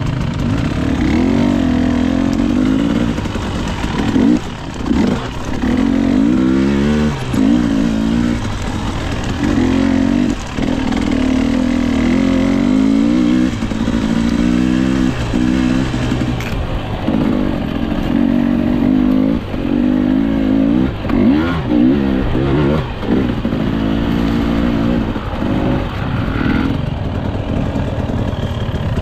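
Dirt bike engine running under changing throttle, its pitch rising and falling again and again, and dropping away briefly several times as the rider backs off.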